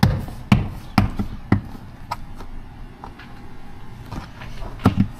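A plastic car trim panel being struck by hand to seat its clips: four sharp knocks about half a second apart, some faint ticks, then two more knocks in quick succession near the end.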